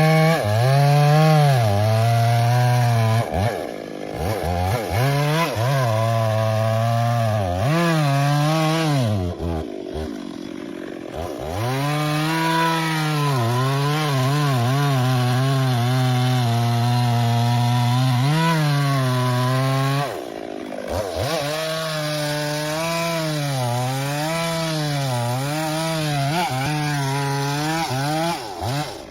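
Chainsaw cutting wood, its engine pitch sagging and recovering as the chain loads in the cut. The throttle is let off briefly about four, ten and twenty seconds in.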